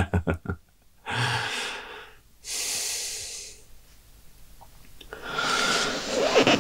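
A man breathing heavily, three long audible breaths. The first has a low voiced sigh in it, and the next two are hissier.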